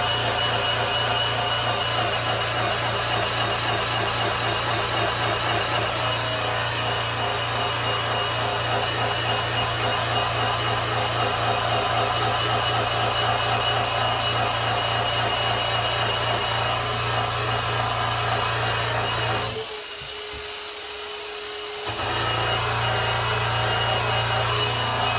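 Electric polisher buffing the finish of a grand piano: a steady motor hum with a rubbing sound from the pad. About twenty seconds in, the motor hum stops for about two seconds, then the polisher runs again.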